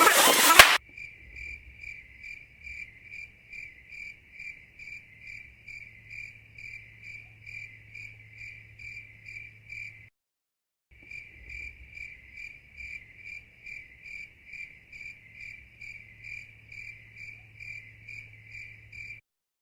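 Cricket chirping at an even pace, about two chirps a second, over a faint low hum. It breaks off briefly about halfway through.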